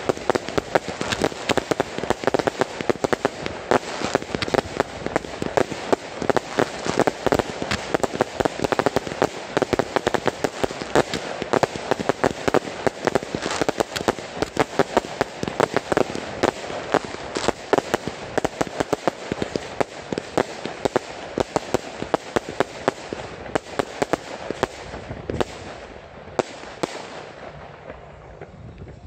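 Ground-fired fireworks from multi-shot cakes, with no mortar shells: a dense, continuous rattle of rapid pops and cracks as many small stars burst at once. It thins out and stops a couple of seconds before the end, as the closing barrage finishes.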